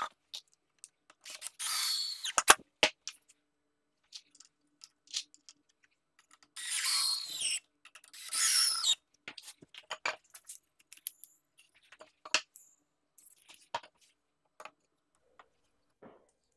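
Workbench assembly noises: several short, high noisy bursts of about a second each, two of them close together about seven and eight and a half seconds in, amid scattered knocks and clicks.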